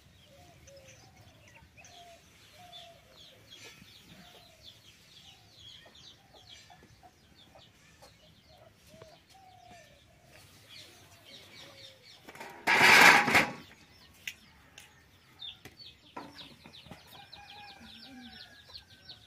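Chickens clucking in short, falling notes about twice a second, with small birds chirping quickly and high above them. About two-thirds of the way through, a loud burst of noise lasts about a second.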